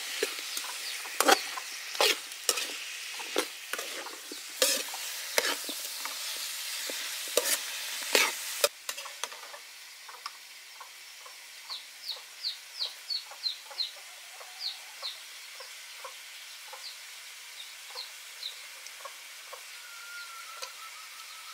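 Pork ribs, pineapple and bell peppers sizzling in a wok, with a metal spatula scraping and clanking against the pan as they are stir-fried; this stops suddenly about nine seconds in. After that come bursts of short, high bird chirps, several a second, over a quieter background.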